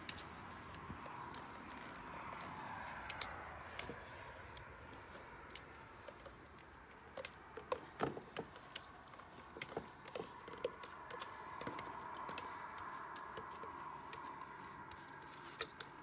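Spoon clicking and scraping against a plastic yogurt tub as yogurt is dolloped onto food in aluminium pots: scattered light clicks, busiest around the middle, over a faint steady hum.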